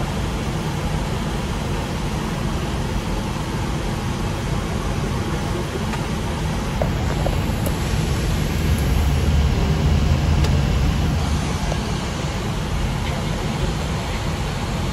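Steady cockpit noise of an Airbus A320 taxiing: a low engine and airframe rumble under a constant air-conditioning hiss, swelling slightly about two-thirds of the way through. A few faint clicks come from switches being set on the overhead panel.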